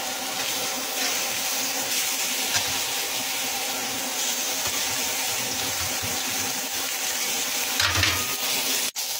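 Raw beef burger patties sizzling on a hot ridged grill pan, a steady hiss that cuts out for an instant near the end.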